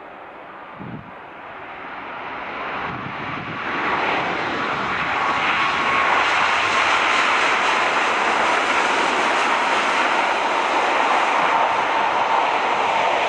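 Boeing 737 MAX 8-200 jet airliner's CFM LEAP-1B engines arriving. Their noise grows louder over the first few seconds, then holds as a steady loud jet rush with a faint whine.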